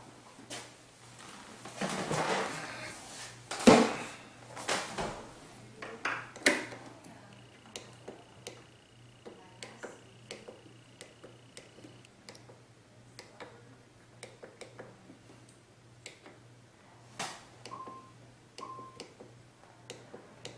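Scattered clicks and knocks of hands handling and pressing controls on an electronic instrument, louder in the first few seconds. A faint steady tone lasts several seconds midway, and two short beeps come near the end.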